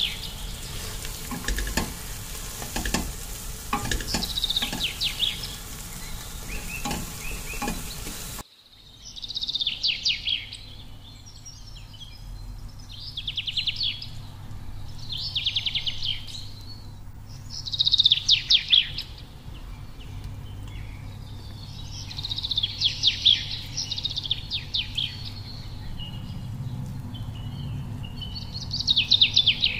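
A spoon stirring and scraping a dry, cooking filling in a metal pot, with a small bird chirping over it; after an abrupt cut, the stirring stops and the bird's short trilled chirps come every two to three seconds over a low steady hum.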